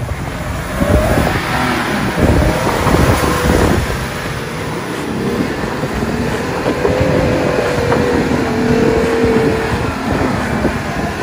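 Jeep Gladiator Rubicon on 40-inch tires accelerating on loose beach sand, its engine revving up and down as it swings into a turn and the tires churn the sand.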